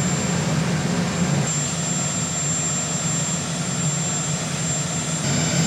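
Marine One, a Sikorsky VH-3D Sea King helicopter, running on the ground with its twin turboshaft engines: a steady low drone under a thin, high, constant whine.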